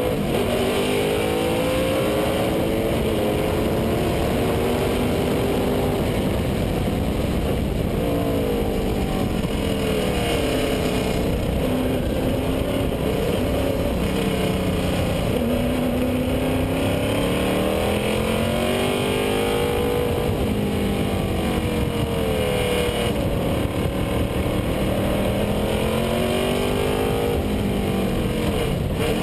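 Lola sports racing car's engine at racing speed, heard on board: the revs climb and drop again and again as the car accelerates, brakes and changes gear through the corners, over a steady rush of noise.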